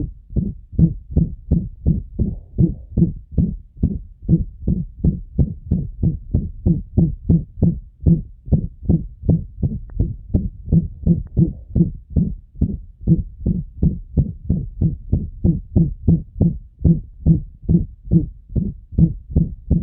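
A dog's heart heard through a stethoscope, beating fast and regularly with a loud, blowing murmur: the mitral regurgitation of mitral valve disease, made severe by ruptured chordae tendineae.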